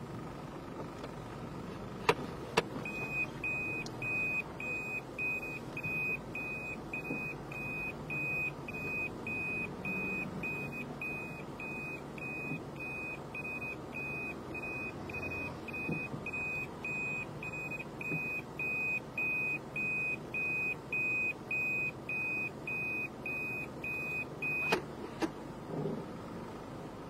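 A car's electronic warning beep sounding inside the cabin, repeating evenly about twice a second for some twenty seconds over the low hum of the idling car. A couple of sharp clicks come just before the beeping starts and again just as it stops.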